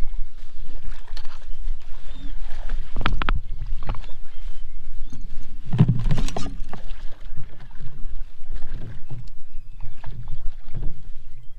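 Water sloshing and slapping against the hull of a small boat, with irregular knocks and two louder splashes about three and six seconds in, over a low steady rumble.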